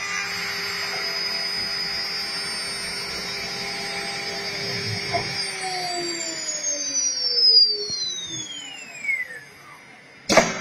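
CNC router's electric drilling spindle running with a steady whine and hiss, then spinning down from about halfway through, its tones falling in pitch as it slows. A sharp knock near the end.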